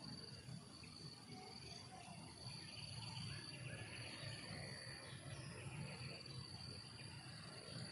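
Faint insect trill in the forest: a steady high-pitched note that drops out briefly every second or two, with a fainter, even higher buzz above it and a low rumble underneath.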